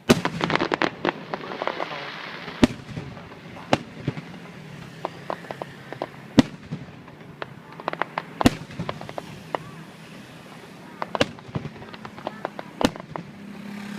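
Aerial fireworks shells bursting: a quick volley of sharp bangs and crackle at the start, then single loud reports every second or few, with bursts of crackling in between.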